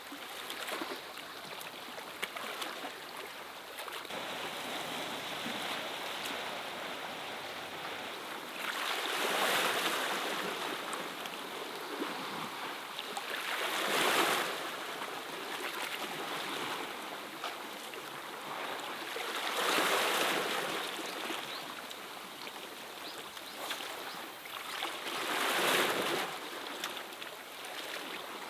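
Sea waves washing against a rocky shore: a steady wash of water, with four louder surges coming about every five to six seconds.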